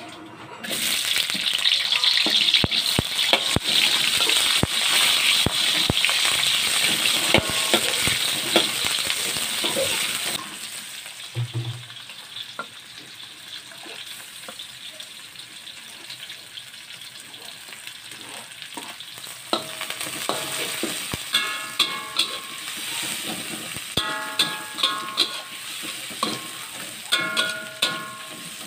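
Sliced onion frying in hot oil in a metal wok: a loud sizzle that drops to a softer frying after about ten seconds. In the second half a metal spatula stirs, scraping and clinking against the wok in repeated strokes that ring.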